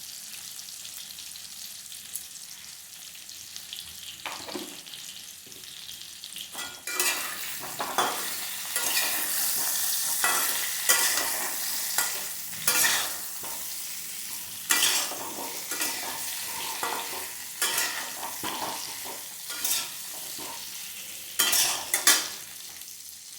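Cubed potatoes frying in hot oil with turmeric and salt, sizzling steadily and louder from about seven seconds in, while a spatula stirs them, scraping and knocking against the pan many times.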